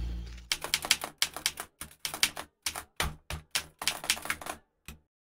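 Paper crinkling and rustling as hands handle a thin translucent envelope and die-cut paper pieces: a run of irregular crisp crackles with short gaps, stopping about five seconds in.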